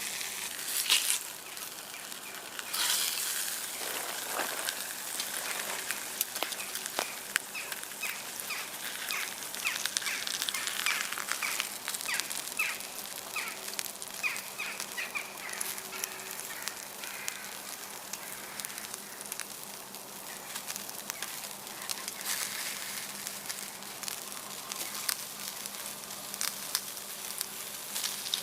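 Steak sizzling in a pan over a campfire, a steady hiss with scattered crackles. A bird calls a quick run of repeated short notes through the middle.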